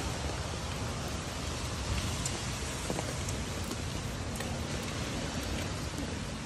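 Steady rain falling on a street and pavement: an even hiss with scattered small drop ticks.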